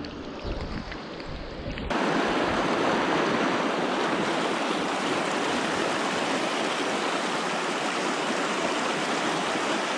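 River water rushing in a steady, even flow, cutting in abruptly about two seconds in.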